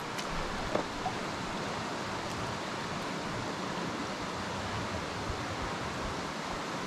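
Steady rush of a small mountain creek running over rocks, a constant even hiss of water.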